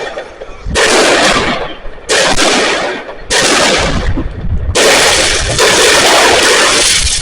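Consumer firework battery going off: a series of sudden loud bursts with dense crackling, a new one starting about every second or so, then running on without a break from about five seconds in.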